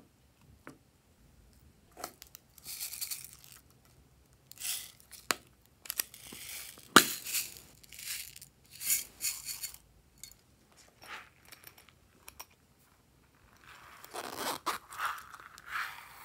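Small seed beads rattling as they are poured and shaken out of a heart-shaped tin and a plastic container onto slime in a tray. There are several short hissing pours with sharp taps of the container; the loudest tap comes about seven seconds in.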